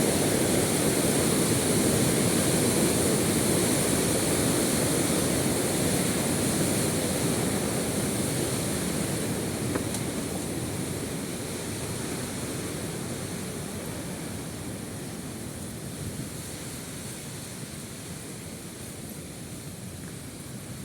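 Rushing water from a fast river and waterfall, a steady roar that slowly fades away.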